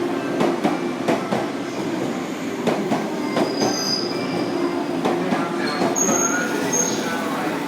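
Train wheels rolling along a station platform, clacking over rail joints in a quick irregular rhythm, with brief high wheel squeals about halfway through and again near the end.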